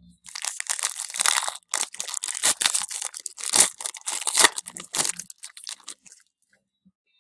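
Foil wrapper of a baseball card pack crinkling and tearing as it is ripped open by hand, a dense crackle that stops about a second before the end.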